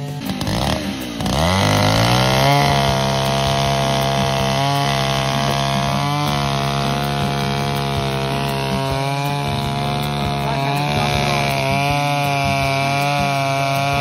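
Chainsaw revving up about a second in, then running steadily at high speed, its pitch dipping slightly now and then.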